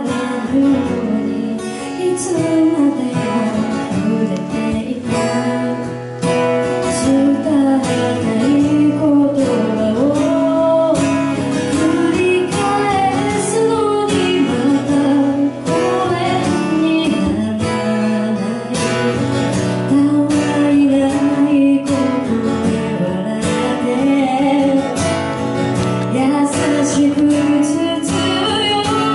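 A woman singing a Japanese pop song live into a microphone, accompanied by strummed acoustic guitar.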